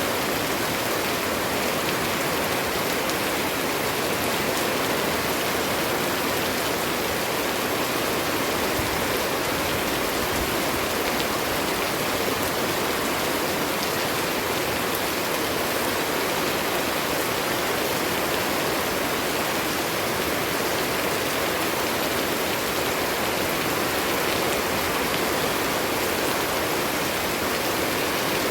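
Rain falling steadily, an even hiss without pauses or changes.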